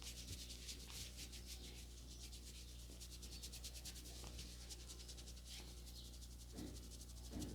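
Hands rubbing briskly over hair and scalp in a head massage: a fast, even run of scratchy strokes, with a steady low hum underneath.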